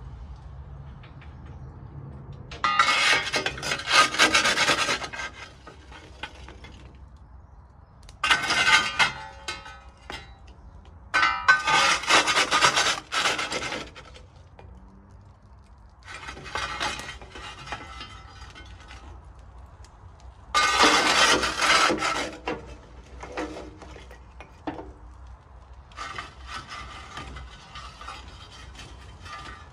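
Repeated bursts of scraping or rubbing, about six of them, each lasting around two seconds with short pauses between; the last is fainter.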